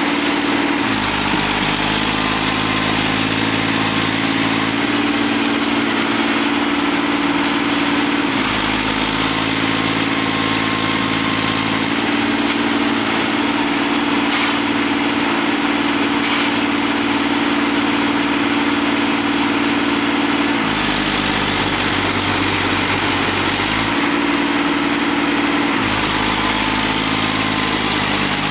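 New Holland 3037 NX tractor's three-cylinder diesel engine running, its speed stepping up and down several times as it works a hitched trailer through mud.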